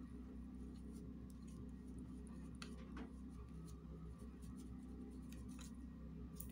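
Faint light taps and scratches from a wooden letter sign being handled and brushed, with a few brief clicks scattered through, over a low steady hum.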